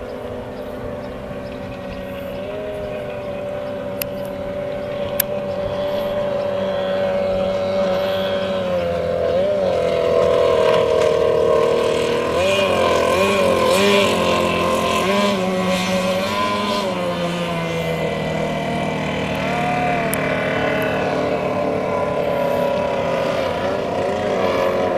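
Outboard motor of a small racing boat running flat out, a steady high-revving engine note. It grows louder toward the middle as the boat comes close, and its pitch wavers and dips there before settling again.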